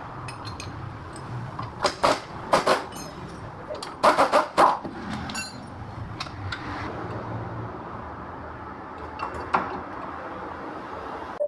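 Metal clinks and knocks from work on a car's front suspension strut, over a steady low hum. There are a few sharp knocks about two seconds in, a tight cluster between four and five seconds in, and one more near the end.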